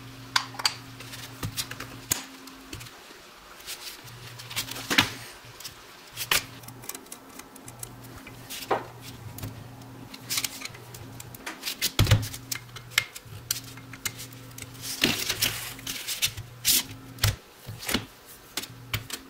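Irregular clicks and clinks of small aluminum tail-light parts being handled and fitted together on a bench, with a screwdriver turning small screws into the housings. A low steady hum runs underneath.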